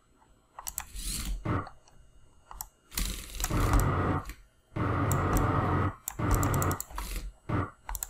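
Servo motors of a small robot dump truck whirring in five bursts, most about a second long, as it is driven forward in spurts, with light mouse clicks between the bursts.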